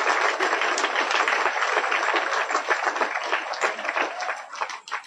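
Applause from a large seated audience of students: many hands clapping densely and steadily, thinning out and dying away near the end.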